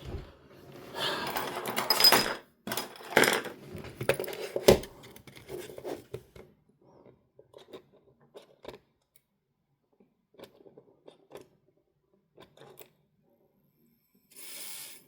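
Small clicks, taps and rattles of hands and tools working on a Sony MZ-E730 minidisc player's mechanism: a busy cluster of handling noise in the first few seconds, then scattered faint clicks, and a short hiss just before the end.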